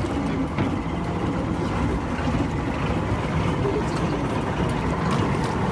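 Motorboat engine running steadily under way, a constant low drone.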